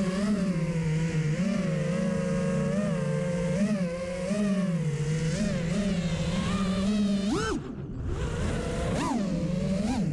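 FPV quadcopter's brushless motors whining in flight, their pitch wavering up and down with the throttle. About seven and a half seconds in, the pitch shoots up and then cuts out briefly as the throttle is chopped, before climbing again a second later.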